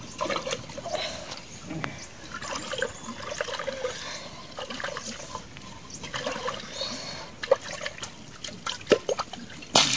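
Water trickling and sloshing, broken by many small clicks and knocks, with a few sharper knocks in the last few seconds.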